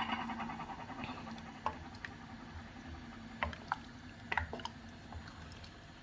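Fish and potato curry simmering in a pan: scattered soft bubbling pops and ticks over a faint steady hum.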